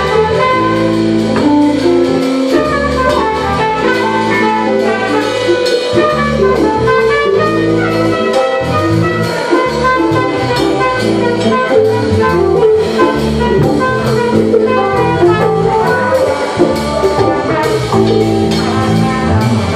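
Live jazz fusion band playing a number: a moving bass line, drum kit keeping a steady beat and a melodic lead line over the top.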